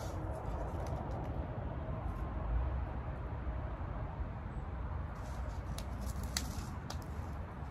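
Light rustling, clicks and small snaps of elephant ear leaves and stems being handled and pulled apart, busier in the second half with one sharper snap, over a steady low background rumble.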